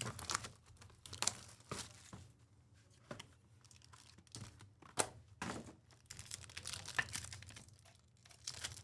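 Cardboard trading-card box being opened and its wrapped contents handled by hand: irregular crinkling, scraping and short clicks of card stock and packaging.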